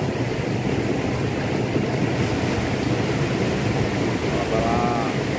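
Shallow stream rushing over rocks, a steady wash of water.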